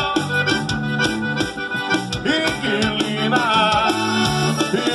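Live band playing: accordion over electric bass and drums, with a man's singing voice coming in about halfway through.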